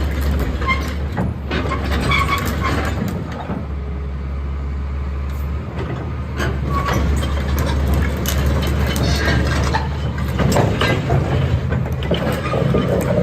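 Caterpillar 325C excavator's diesel engine running steadily, with scattered knocks and clanks over it.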